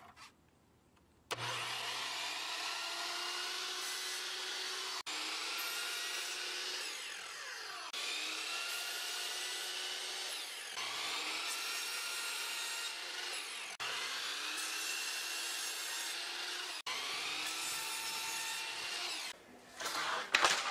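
Miter saw motor whining as its spinning blade cuts lengths of white trim molding. The sound comes as about six back-to-back stretches of a few seconds each, each starting abruptly, with the whine's pitch dipping and recovering as the blade bites.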